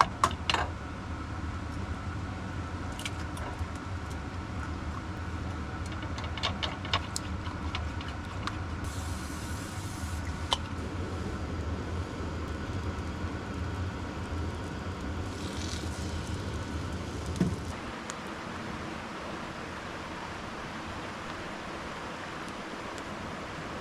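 A motor running steadily with a low hum, with a few light clicks on top; the hum cuts off about 18 seconds in, leaving a steady hiss.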